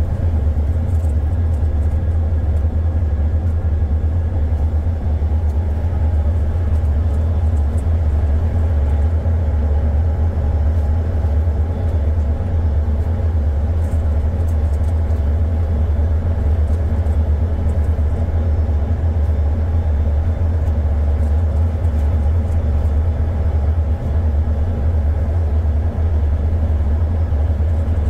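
Ship's engine running under way, a steady low drone that does not change.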